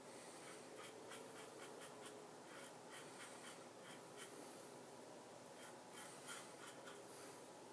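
Double-edge safety razor, a Gillette Red Tip fitted with a new Personna blade, scraping through lathered stubble on the neck in short strokes. It makes faint, irregular scratches, several a second.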